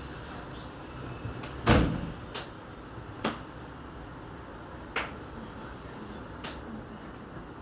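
Five sharp knocks and clicks over a low steady background. The loudest is a heavy clunk about two seconds in, and lighter clicks follow at intervals of about a second.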